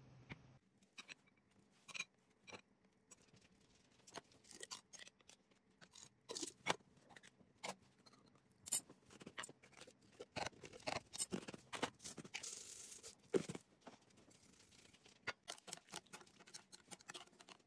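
Eating utensils clicking and scraping against a ceramic soup bowl in irregular small taps, with a brief hiss about twelve seconds in.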